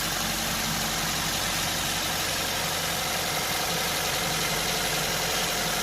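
Maruti Swift engine idling steadily on a CNG conversion with a misfire, traced to a faulty CNG injector that needs replacing.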